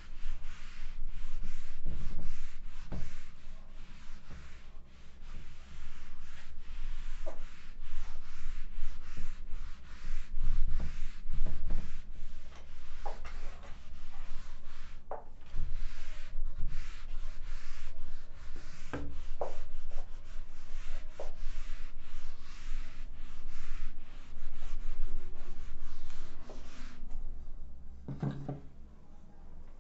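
Whiteboard duster rubbed rapidly back and forth across a whiteboard, wiping off marker writing. The rubbing comes in spells of quick strokes with short pauses between them, and eases off near the end.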